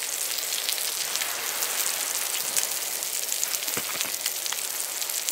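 Pork neck sizzling on a ridged grill plate: a steady hiss full of fine crackles. A single light knock about four seconds in.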